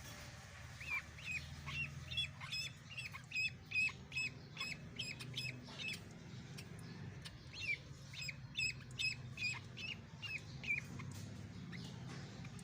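Duckling peeping: runs of short, high calls, several a second, that stop and start again, over a steady low hum.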